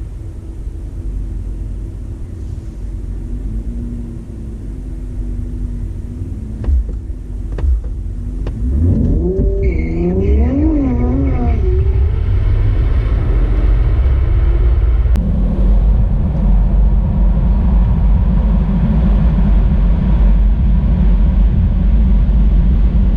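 Car engine running at a steady low rumble, revved up and down several times about ten seconds in. From about fifteen seconds in it gives way to a louder, steady run.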